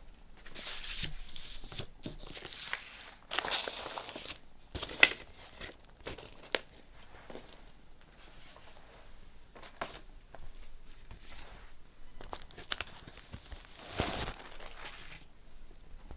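Vinyl record packaging being handled: irregular crinkling and rustling of sleeves and wrapping, with a few sharp taps.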